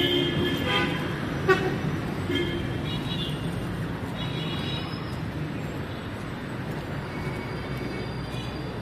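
City street traffic noise with car horns tooting several short times in the first few seconds, and a single sharp click about a second and a half in.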